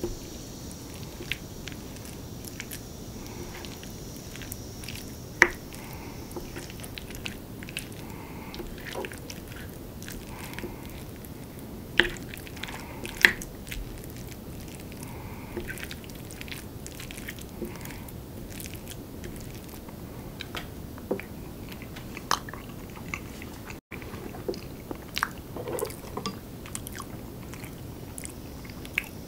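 Close-miked eating of curry rice: a spoon scraping and knocking on a ceramic plate, with sharp clinks about 5, 12 and 13 seconds in, and chewing and soft mouth sounds between.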